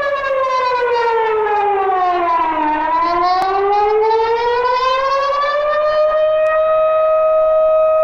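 Civil defence warning siren sounding its wavy alert tone: the pitch slides slowly down for nearly three seconds, climbs back over about three more, then holds steady. This wavering tone is the signal that a threat has occurred, sounded here as a test.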